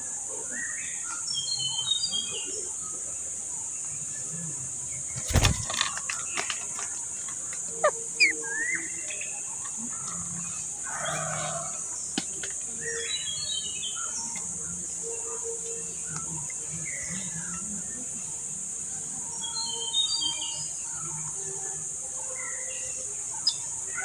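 Short bird chirps in quick clusters, three times, over a steady high-pitched hiss, with one sharp knock about five seconds in and a few lighter clicks soon after.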